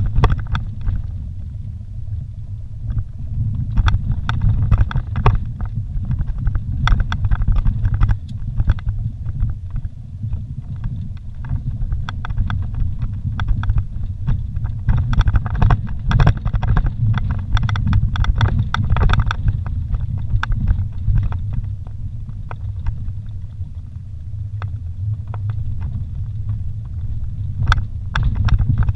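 Vehicle driving over a rough dirt road, heard from inside the cab: a steady low rumble of engine and tyres, with frequent short rattles and knocks from the bumpy track.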